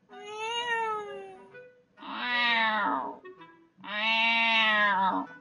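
Recorded cat meows played through a tablet's small speaker: three drawn-out meows in a row. The first is higher and rises then falls. The next two are lower, louder and longer.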